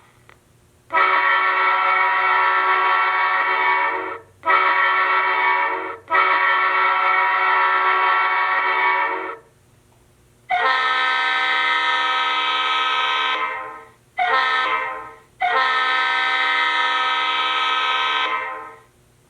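Recorded diesel locomotive air horns played back by an ESU LokSound 5 sound decoder through an HO-scale model locomotive's small speaker: a Nathan M5 five-chime horn sounded long, short, long, then a Leslie RS3L three-chime horn sounded long, short, long, with a brighter chord.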